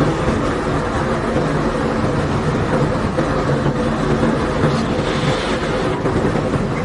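Heavy machinery unloading limestone from a barge, running steadily as an even engine hum under a constant rumble, with no break or change.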